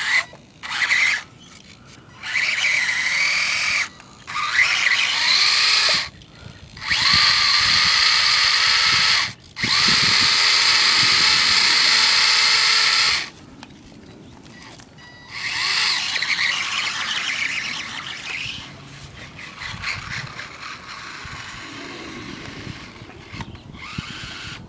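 1/24-scale Losi RC truck's electric motor and gears whining in repeated throttle bursts of one to four seconds with short pauses between, the pitch rising as it speeds up. Quieter and choppier over the last several seconds.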